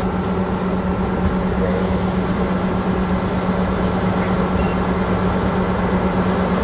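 Fire truck engine running steadily with a constant low drone, over an even noisy wash.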